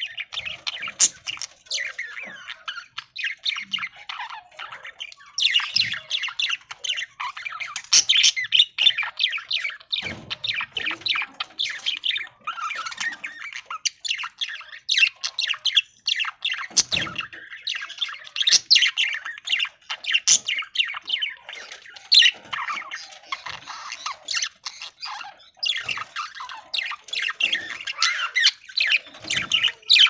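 A flock of budgerigars chattering: many quick, high chirps and squawks overlapping without a break, with a few dull knocks now and then.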